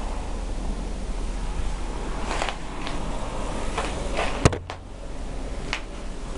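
Steady noise of blizzard wind blowing, with a few short gusts or rustles and a single sharp click about four and a half seconds in, after which the noise briefly drops.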